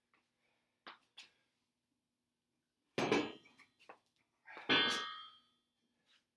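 Two metallic clangs from a steel hex bar and its plates being handled, about three seconds in and again a second and a half later, the second ringing briefly. A couple of light clicks come before them.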